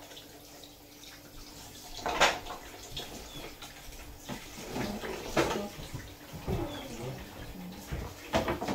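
Tap water running into a kitchen sink while raw fish are washed by hand in a basin, with several sharp knocks from handling, the loudest about two seconds in.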